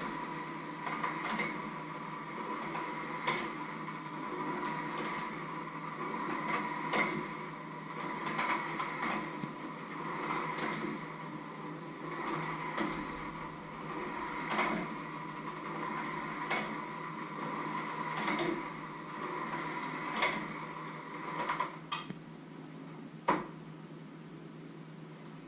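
Electric hand mixer running steadily in a metal bowl, its beaters clicking and knocking against the bowl, then switched off about 22 seconds in, followed by one sharp click.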